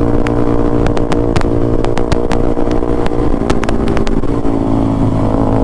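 Yamaha R15M's single-cylinder engine running through an SC Project full-system exhaust, held at a steady speed while riding. It is loud, with the pitch easing off slightly partway through and sharp clicks scattered throughout.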